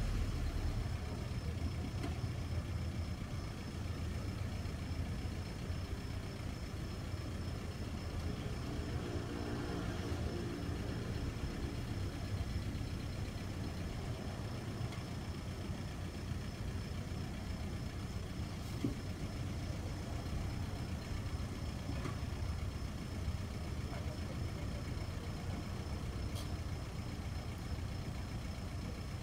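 Small hatchback's engine running at low revs with a steady low hum while the car creeps back and forth in a tight parking space.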